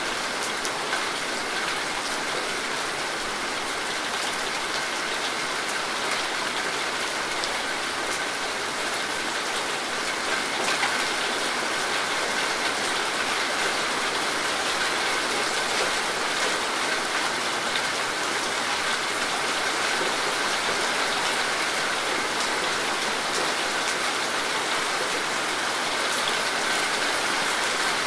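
Steady rain falling: an even, continuous hiss with the faint ticks of individual drops.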